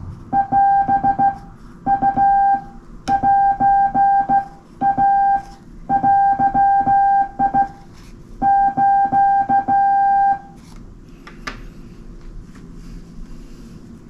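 Morse code sent by hand on a straight key: a steady mid-pitched beep keyed on and off in dots and dashes, in groups of characters, with a faint clack of the key under each element. The keying stops about ten seconds in.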